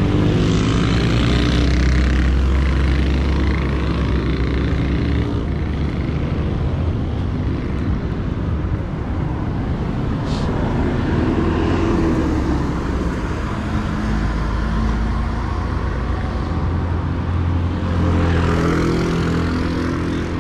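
Steady wind rumble on the microphone of a camera riding on a moving bicycle, mixed with the engines of city traffic. Near the end, the engines of buses lined up along the road run close by.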